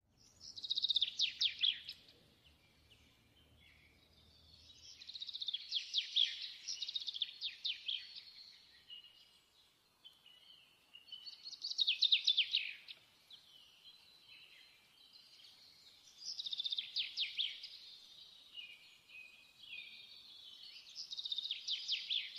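Bird song: bouts of rapid, high chirping notes, one burst roughly every five seconds.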